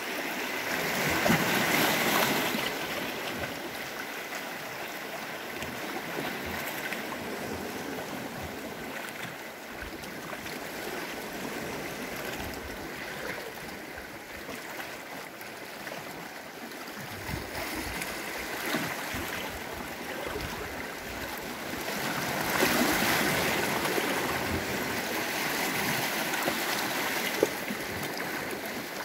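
Small sea waves lapping and washing among shoreline rocks, a steady splashing wash that swells louder twice, about two seconds in and again in the last third.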